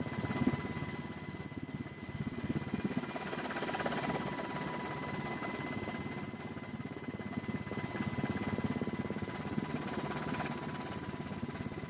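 Aircraft engine noise heard from inside the aircraft: a steady drone with a fast, even pulsing, and a thin steady high tone over it.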